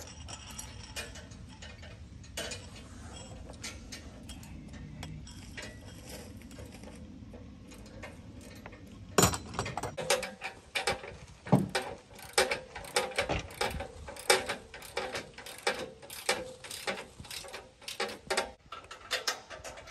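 Ratchet wrench clicking in quick runs as bolts are tightened on a steel sawmill track frame, after a sharp knock about nine seconds in. Before that, only a steady low background with a few light clinks of hardware.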